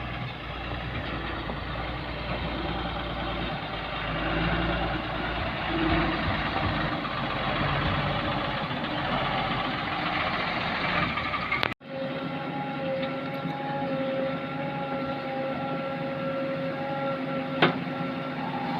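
Heavy diesel machinery running steadily with a low rumble. About twelve seconds in the sound cuts out sharply, then resumes as a steadier engine whine with fixed pitched tones.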